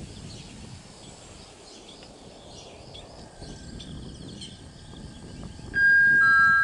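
Railway station public-address chime: two clear electronic notes, a high one and then a slightly lower one, sounding loudly and held near the end. Before it, outdoor ambience with faint bird chirps.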